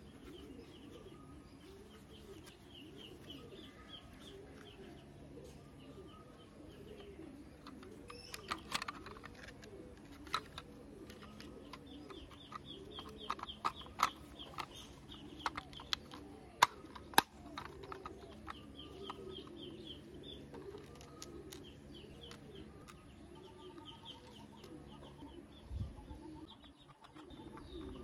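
Pigeons cooing over and over, with small birds chirping, while plastic toy car parts click and snap as they are handled and fitted together; the sharpest, loudest clicks come in a cluster midway.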